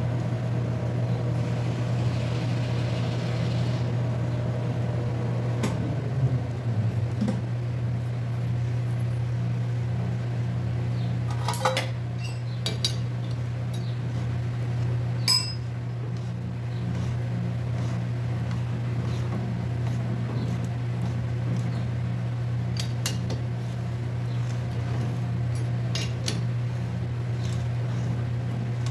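Lathe running with a steady hum while a hand die in a two-handled die stock cuts an 8 TPI thread onto a 1-inch steel bar turning in the chuck. A few sharp metallic clicks and clinks sound now and then.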